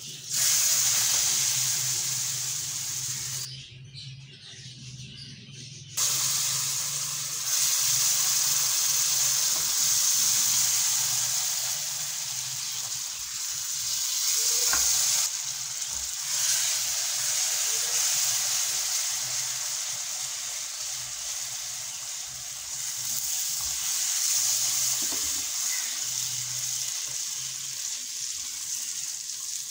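Semolina frying in ghee in a wok, sizzling steadily, with hot syrup poured into the pan and stirred through so that the mixture sizzles and bubbles loudly. The sizzle drops away briefly about four seconds in.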